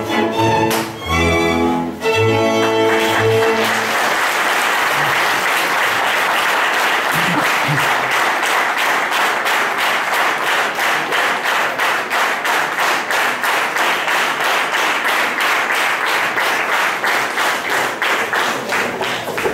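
A folk string band of fiddle and double bass plays the last bars of a dance tune and stops a few seconds in. Audience applause follows and settles into steady rhythmic clapping.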